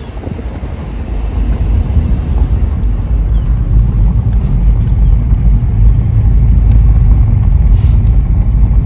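Motorboat under way: a steady low rumble that grows louder over the first several seconds, then holds.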